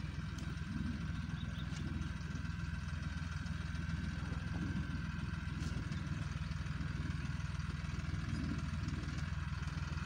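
Small farm tractor's engine running steadily as it pulls a plough through the field.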